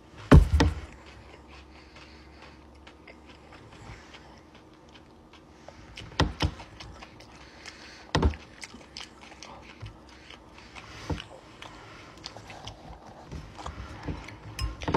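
A loud thump a fraction of a second in, then a quiet room broken by a few short clicks and taps of a metal fork in a glass mixing bowl.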